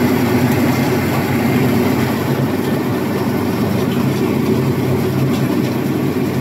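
Rice milling machine running loaded with paddy: a loud, steady mechanical drone with a low hum.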